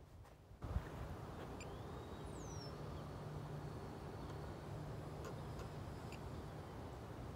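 Outdoor wind noise with a faint steady low hum, and a bird's short falling whistle about two seconds in.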